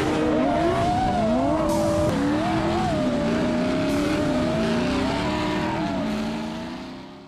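Two drift cars' engines revving up and down, with tires skidding as they slide in tandem; the sound fades out near the end.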